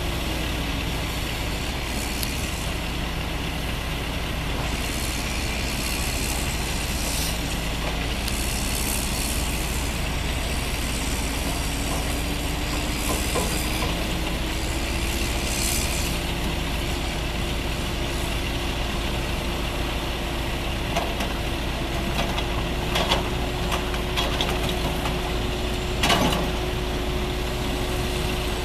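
Caterpillar 324D L excavator's diesel engine running under hydraulic load as it digs and swings, its pitch dipping early on and climbing back a few seconds later. Several short rushes and knocks, the loudest two near the end, as the bucket works the dirt.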